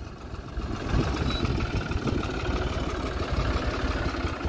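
A motor vehicle's engine running at low revs, louder from about a second in.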